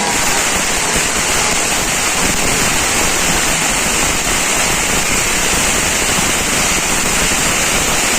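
Firework fountains spraying sparks: a steady, loud hissing rush with no separate bangs.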